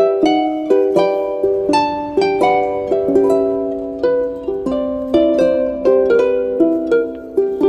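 Background music: a plucked-string melody, light notes struck about twice a second.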